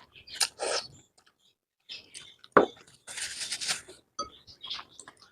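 Cutlery clinking against a bowl amid eating sounds while spicy noodles are eaten, with a sharp knock about halfway through.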